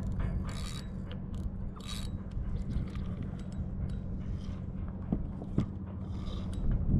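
Wind rumbling on the microphone, with a few short scraping rustles from hands handling a spinning rod and reel.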